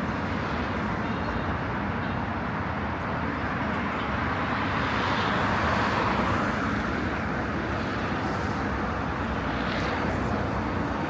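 Steady road traffic noise, with a vehicle passing that swells louder around the middle and fades again.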